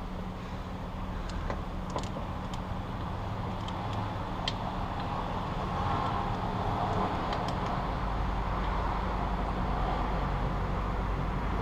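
A steady low mechanical hum that slowly grows louder, with a few light metallic clicks scattered through the first part, typical of Honda CB750 transmission gears and shift drum being turned by hand in an open engine case.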